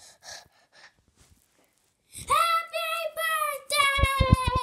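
A child's voice holding one long, high sung note, starting about two seconds in and sliding slowly down in pitch, wavering near the end. A few low thumps from the plush toys and camera being handled come partway through.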